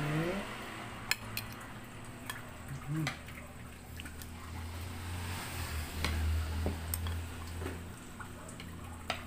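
Spoons clicking and scraping on plates during a meal: a few light, scattered clinks, with a low steady hum underneath from a few seconds in.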